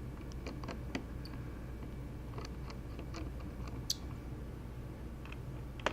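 Light plastic clicks and taps from handling small parts inside an open laptop during reassembly, scattered and irregular, with a sharper click about four seconds in and another near the end, over a steady low hum.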